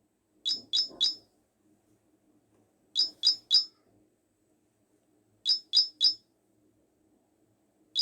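A Samsung Galaxy S10 ringtone: bursts of three quick, high-pitched chirping beeps, repeated about every two and a half seconds.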